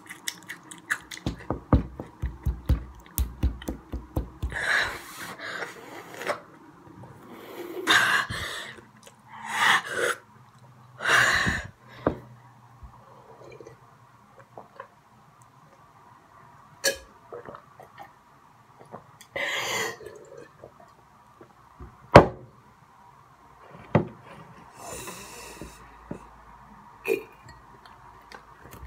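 Heavy, hissy breaths and snorts from a person whose mouth is burning from spicy hot Cheetos, coming in separate bursts with pauses between. A quick run of clicks or taps in the first few seconds, and one sharp knock about two-thirds of the way through, the loudest moment.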